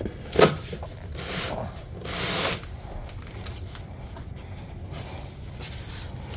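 Puppies moving and rustling about, with a short, loud pitched cry about half a second in and a brief rush of noise around two seconds in.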